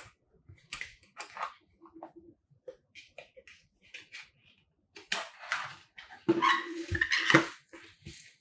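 White cardboard packaging being handled: a cardboard sleeve and tray insert sliding, scraping and rustling in short separate strokes, with a few brief squeaky rubs. The scraping comes thicker and louder from about five seconds in to near the end.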